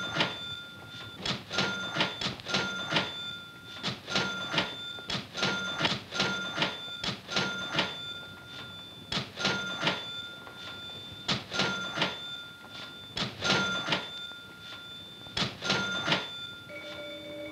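Mechanical clattering from an office or printing machine: sharp clacks in irregular clusters about once or twice a second, with a steady ringing tone sounding between them. Soft mallet-percussion music comes in near the end.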